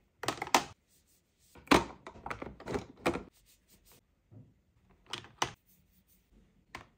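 Plastic lipstick and lip-gloss tubes clicking and clattering against a clear plastic drawer organizer as they are picked up and set down, in a few short runs of taps with quiet gaps between.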